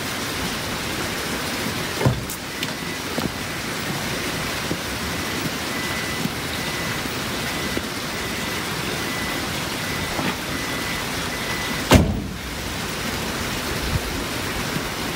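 Steady, even rushing noise, like rain, with a short knock about two seconds in and a louder one near the end. A faint high steady tone runs through the middle.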